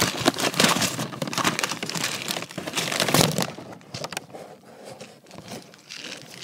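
A paper bag and candy wrappers crinkling and rustling close to the microphone as hands rummage through a bag of candy. It is loudest for the first three seconds or so, then goes on more softly.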